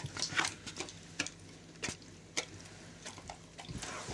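Dog chewing and smacking its jaws to work loose toffee stuck in its teeth: faint, irregular wet clicks and smacks, several spread over the few seconds.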